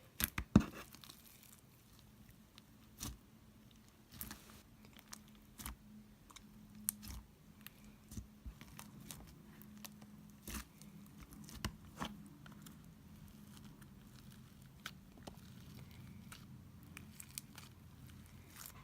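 Slime being squished and pulled by hand, giving irregular soft crackling clicks and pops, with a faint steady hum underneath.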